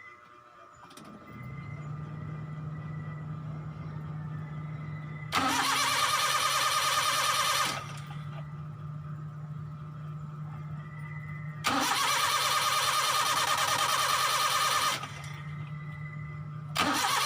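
Car engine with a freshly overhauled carburetor being tried: a steady low hum starts about a second in, then three loud bursts of engine noise, each a couple of seconds long, cut in and stop abruptly.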